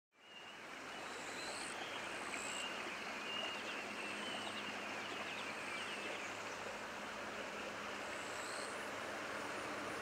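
Steady outdoor background noise fading in from silence, with faint high chirps scattered through it.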